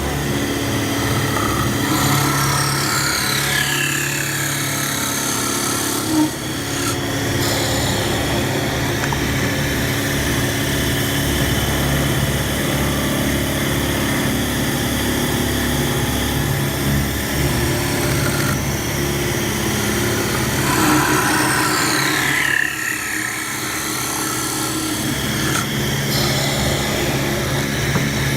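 CNC woodworking machine running steadily with a high whine that falls in pitch twice.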